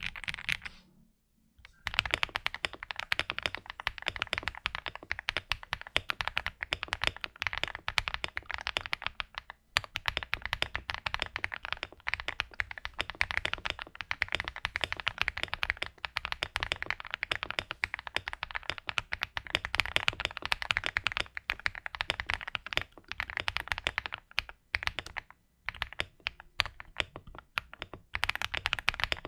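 Fast, continuous typing on a mechanical keyboard fitted with AKKO Mars Green ABS Cherry-profile keycaps: a dense run of key clacks with short pauses about a second in, around ten seconds in and near the end. The sound is fairly balanced and not super clacky for ABS Cherry-profile caps.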